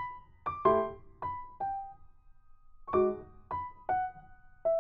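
Background music: a gentle piano tune of single struck notes and chords, with a short pause in the middle and a note left ringing near the end.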